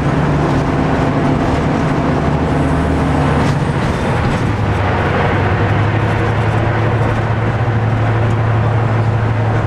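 Class 55 Deltic diesel locomotive's Napier Deltic two-stroke opposed-piston engines running steadily under way, heard inside the cab. The engine note shifts about four seconds in, then holds steady.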